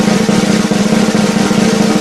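Snare drum roll: a fast, continuous roll of strokes held at an even, loud level.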